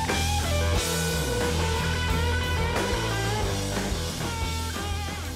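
Background rock music led by guitar, over a steady bass line.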